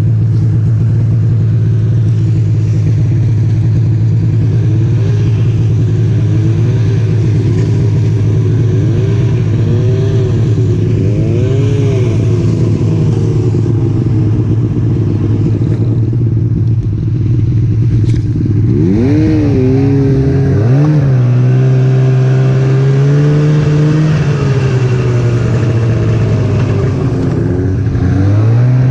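Snowmobile engine running under way, its pitch wavering with the throttle and climbing steeply about two-thirds of the way through as it speeds up.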